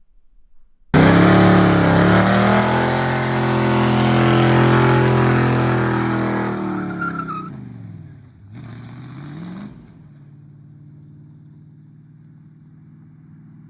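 A loud motor-vehicle engine revving high. It starts abruptly, winds down in pitch about seven seconds in, rises briefly again, and is cut off, leaving a fainter steady engine note.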